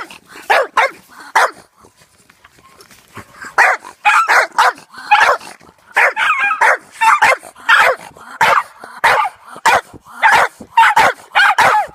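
Dog barking in strings of short, sharp barks: a few at first, a pause of about two seconds, then a long, fast run of barks.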